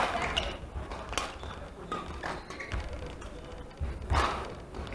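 Badminton rally: sharp racket strikes on the shuttlecock every second or so, with the players' footfalls thudding on the court floor.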